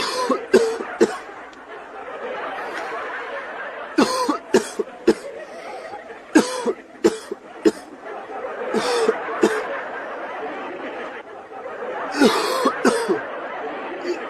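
A man coughing in repeated bouts of two or three sharp coughs, about five bouts in all.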